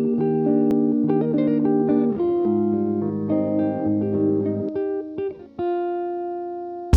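Background music of held, changing notes; about five and a half seconds in the notes break off and a last chord rings out, slowly fading.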